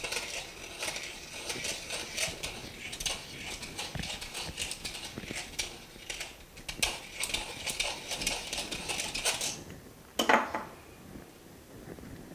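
Hand deburring tool scraping metal out of the inside rim of a Taiwanese 50 NTD coin ring in quick, high-pitched strokes. The scraping stops about nine and a half seconds in, followed by a single knock.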